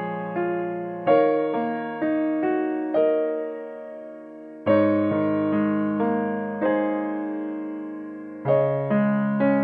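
Background piano music: a gentle tune of single notes and chords, each struck and left to fade, with a short pause before the next phrase about halfway through.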